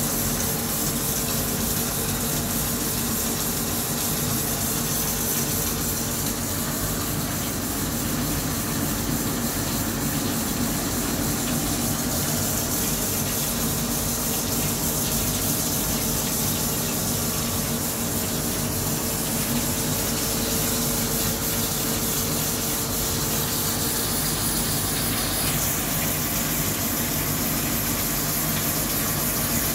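Flood coolant gushing and splashing over a rough-boring cut in a HüllerHille NBH 170 machining center, with an URMA roughing head taking about 3 mm per side. A steady wash of noise with a few steady humming tones underneath.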